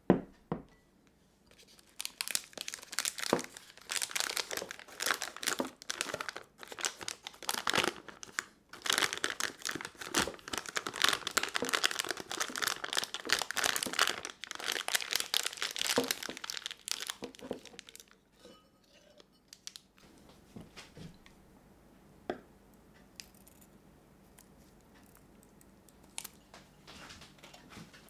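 A single sharp knock right at the start, then a plastic piping bag full of cheesecake cream being gathered and twisted closed: a dense crinkling of the thin plastic that stops about two-thirds of the way through, leaving only a few faint ticks.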